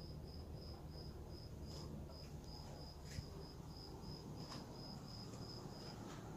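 A cricket chirping in an even, high-pitched pulse, about three chirps a second, stopping near the end; a low steady hum and a few faint clicks lie underneath.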